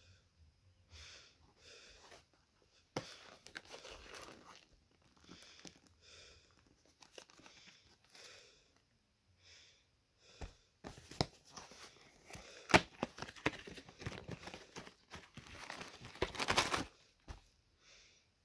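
Cardboard box and hard plastic protective cup being handled as the cup is worked out of the box: rustling and scraping of cardboard and plastic with sharp clicks, busiest and loudest in the second half.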